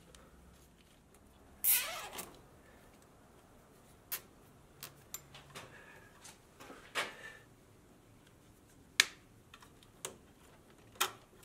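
Hands handling wiring and plastic connectors around a throttle body: scattered sharp clicks and short scrapes, the loudest about two seconds in, with near quiet between them.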